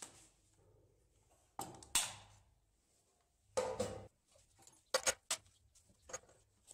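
Separate knocks and clicks of a switched-off plunge router and a wooden workpiece being handled and set down on a steel machine table: a pair of knocks about one and a half to two seconds in, another near the middle, and a quick cluster of clicks toward the end.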